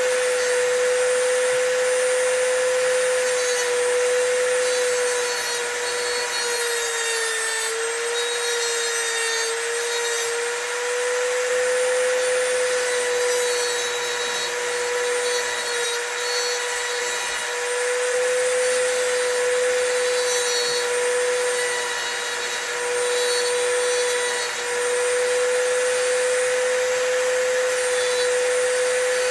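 Dremel rotary tool running at high speed with a cutoff wheel grinding into a brass key blank. A steady high whine with a gritty hiss over it, the pitch sagging slightly each time the wheel is pressed into the metal.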